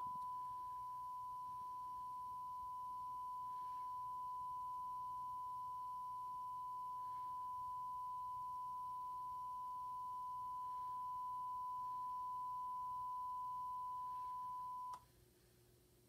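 A single steady high-pitched tone from a VHS tape's playback, holding unchanged and cutting off suddenly about fifteen seconds in.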